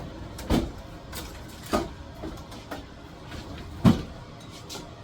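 Bottles of water being set down one by one on the shelves of a refrigerator: three dull knocks with a few small clicks between, the loudest about four seconds in.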